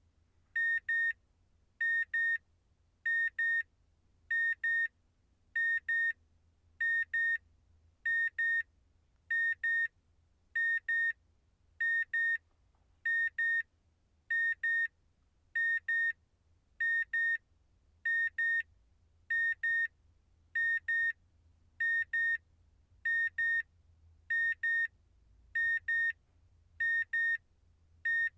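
Car warning beeper sounding a high-pitched double beep about once a second, repeating steadily.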